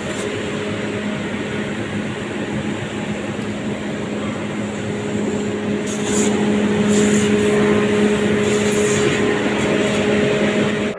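Air compressor running steadily with a constant hum, a little louder from about six seconds in.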